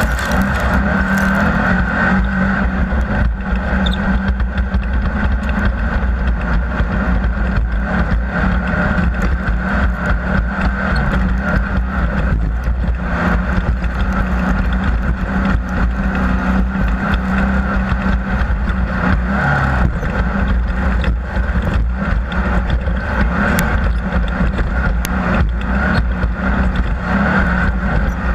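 Off-road race vehicle running hard and steadily at speed, its engine a loud continuous drone with many sharp knocks and rattles running through it.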